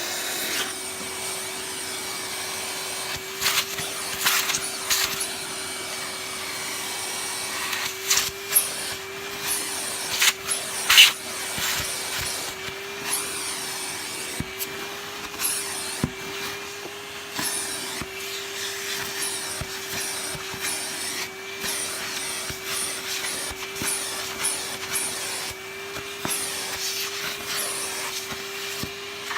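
A vacuum cleaner motor switching on and running at a steady pitch, used to suck dust and dirt out of a stripped-down vacuum cleaner's housing. Its nozzle knocks and clicks against the plastic now and then, loudest about eleven seconds in.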